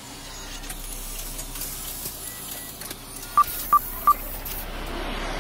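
Computer-interface sound effects: faint electronic blips and chirps, then three short, loud beeps of the same pitch about a third of a second apart, a little over three seconds in, and a swell of noise building near the end.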